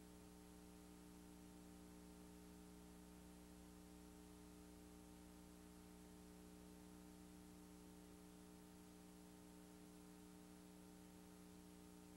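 Near silence: a faint steady electrical hum with background hiss, unchanging throughout.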